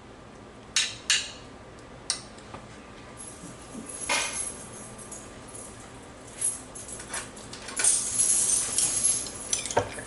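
A metal spoon clinking against a ceramic plate, two sharp clinks close together about a second in and another shortly after, then scraping and handling noises, busiest near the end, as the sauce is worked over the meat.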